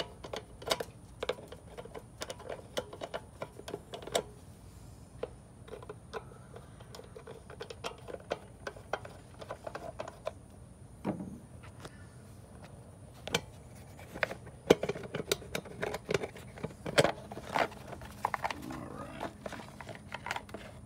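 Scattered clicks, taps and plastic rattles of a flathead screwdriver working on a small engine's plastic air cleaner cover as the cover is loosened and lifted off, with a few sharper knocks in the second half.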